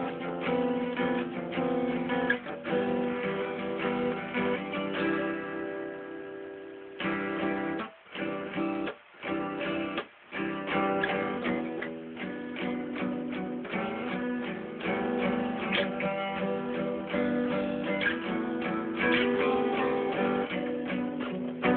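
Solo acoustic guitar playing an instrumental piece in strummed and picked chords. About a third of the way in, a chord is left to ring and fade, followed by three brief stops before the playing picks up again.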